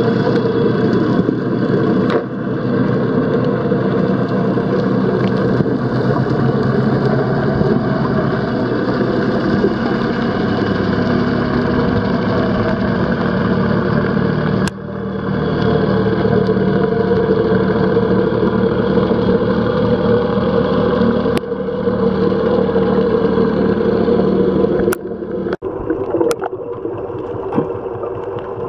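Steady motor drone with a low hum, a boat engine heard through the water, broken by sudden cuts a few times.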